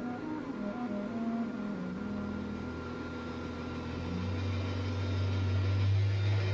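A few soft soundtrack notes, then a low steady drone that swells gradually louder toward the end.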